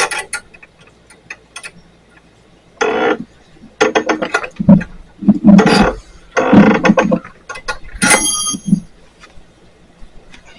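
Metal turnbuckle on a fence gate being tightened under heavy tension: light clicks, then several short bursts of metal grinding and clanking, with a brief high metallic ring near the end.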